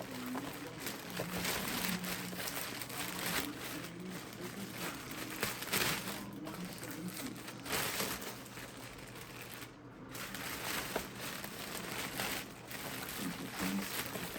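Crumpled packing paper rustling and crinkling in irregular bursts as a shipping box is unpacked by hand.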